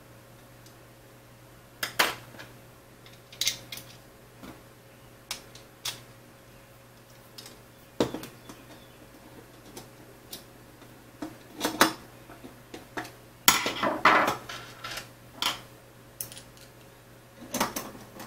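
Scattered clicks and short clatters of an aluminium T-slot extrusion, small metal T-slot nuts and a plastic 3D-printed bracket being handled and fitted together on a wooden table, with a busier run of clatter in the second half.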